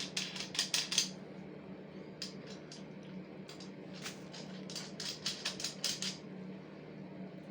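Quick runs of small metallic clicks and rattles as nuts and bolts are tightened by hand on a chainsaw's metal frame, coming in four short bursts.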